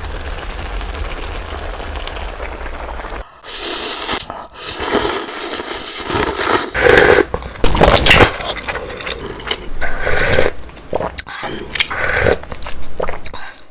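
Utensils scraping and clattering against a pot and dishes in irregular strokes, after about three seconds of steady low hum.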